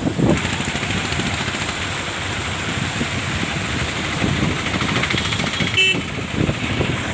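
Motor vehicle running with a steady rushing noise and low rumble, and a short horn toot about six seconds in.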